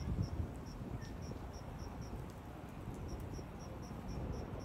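Insect chirping, short high chirps repeating about four times a second with two brief pauses, over a low steady background rumble.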